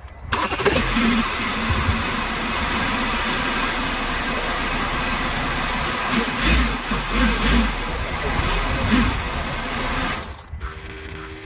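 Toyota Avensis engine started about a third of a second in and run for about ten seconds with a few revs in its second half, then switched off; the car's turbo is stuck.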